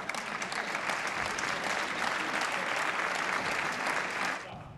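Audience applauding after a point, starting suddenly and fading out near the end.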